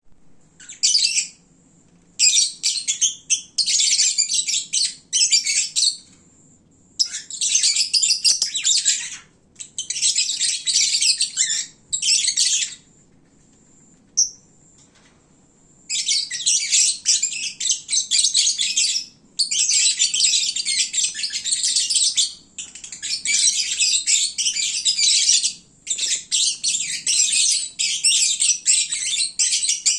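Lovebird chatter: shrill, dense chirping and squeaking in long bursts of several seconds, with short breaks and a longer lull in the middle. This is the noisy drowsy-time chatter lovebirds make after feeding.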